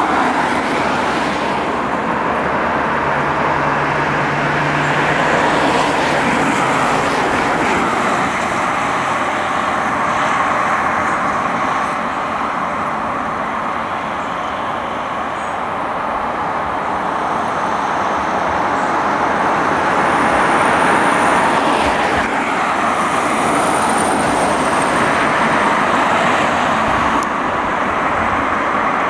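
Steady road traffic noise: cars and vans driving past, tyres and engines, with no clear siren.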